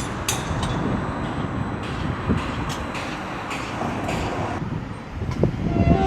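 A train running on the track: a steady rumble with a string of sharp clicks at uneven spacing.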